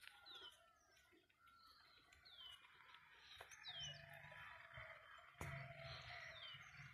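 Faint bird calls: four short, high chirps, each sliding downward in pitch, spaced a second or two apart.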